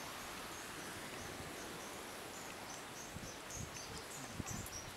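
Steady outdoor background hiss. From about halfway through, short, faint, high-pitched chirps repeat, and a few soft low bumps come in near the end.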